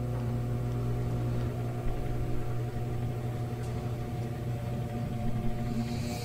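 Vintage Toastmaster 5301-1 electric fan running with a steady motor hum. The owner says it is a little gummed up from sitting unused and needs oil.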